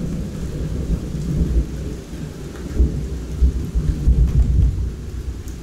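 Thunder rumbling during a rainstorm, a deep uneven roll that swells and fades several times, growing stronger again in the second half, with steady rain falling.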